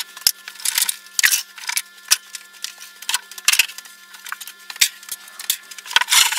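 Wooden offcuts and boards knocking and clattering as they are picked up and stacked, a quick, irregular run of sharp clicks and knocks, sped up by fast-forwarding. A faint steady hum of tones lies underneath.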